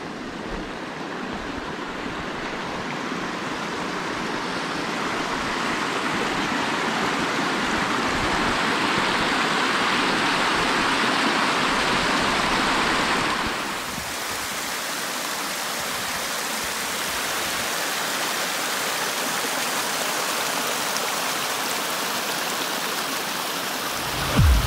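Rushing water of a small rocky creek cascading over stones, growing louder for the first half, then changing about halfway to a softer, steady wash of river water over a stony shore. A brief low thump comes right at the end.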